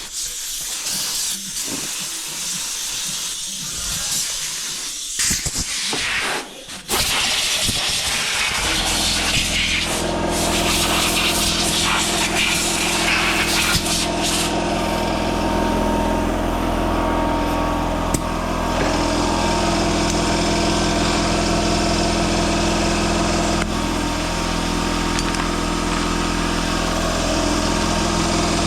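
Compressed-air blow gun hissing in bursts. About eight seconds in, a shop air compressor's motor kicks on and runs with a steady drone, refilling the tank after the air use.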